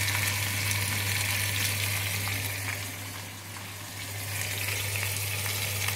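Turkey drumsticks frying in hot oil in a pan, a steady sizzle as the meat browns. The sizzle fades somewhat about halfway through and comes back, over a steady low hum.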